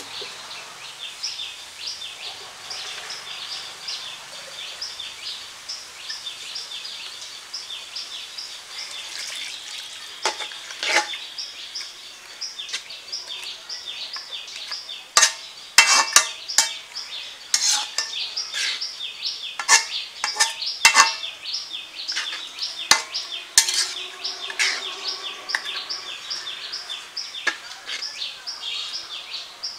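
Fish curry sizzling in a metal karahi. From about a third of the way in, a metal spatula stirs and scrapes it, clanking against the pan's sides; these clanks are the loudest sounds. Throughout, a bird chirps rapidly and repeatedly, about three short chirps a second.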